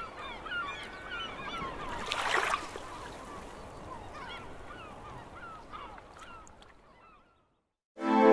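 Many short overlapping bird calls, each a quick curved chirp or squawk, with a brief rushing swell of noise about two seconds in. The calls fade out about seven seconds in, and at the very end music with sustained keyboard tones begins.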